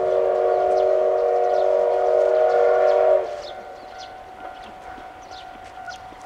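Steam locomotive whistle blowing one long chord of several steady tones, stopping abruptly after about three seconds.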